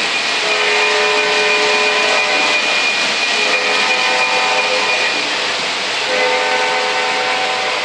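O gauge model freight train rolling past on metal three-rail track, its wheels making a steady loud rumble, while a model diesel locomotive's onboard sound system blows its horn in three long blasts.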